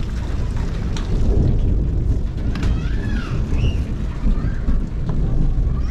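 Wind buffeting the microphone, a heavy, uneven low rumble, with a brief high call rising and falling about three seconds in.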